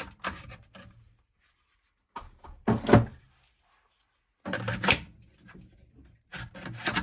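Bench handling noise: four short groups of knocks and clunks, the loudest about three seconds in, with near silence between them, as a work light is dealt with after going out.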